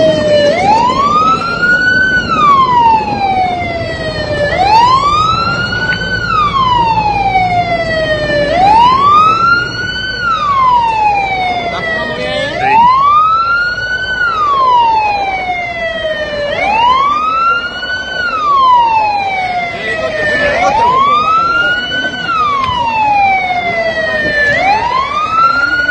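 Emergency vehicle siren in a slow wail. Each cycle rises for about a second and a half and falls for about two and a half, repeating about every four seconds, over a low rumble.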